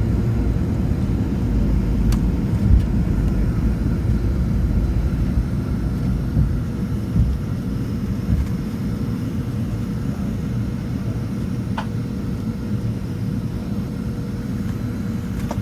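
Cabin noise inside a McDonnell Douglas MD-80 jetliner during takeoff and climb: a steady low rumble of engines and rushing air with a faint constant hum, easing slightly about a third of the way in. There are two faint clicks.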